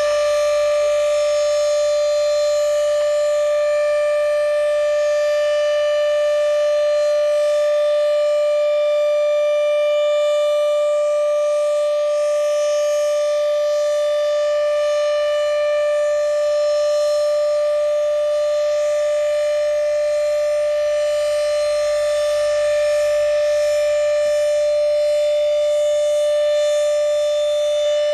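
Federal Signal Thunderbeam (RSH-10) outdoor warning siren sounding the Alert signal in a routine test: one loud, steady tone that holds its pitch, rich in overtones.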